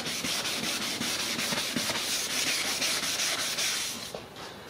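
Wet 600-grit sandpaper rubbed back and forth by hand over a plastic headlight lens: a rhythmic rasping of quick strokes that stops about four seconds in. The sanding is cutting away the lens's yellowed, sun-burnt outer layer.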